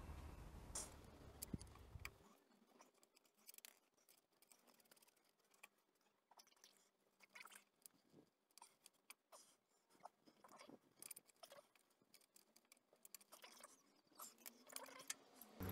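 Faint, scattered light clicks and ticks of a spanner and nuts being worked onto the two bolts that hold a front lift block to a Land Rover Discovery's axle spring seat.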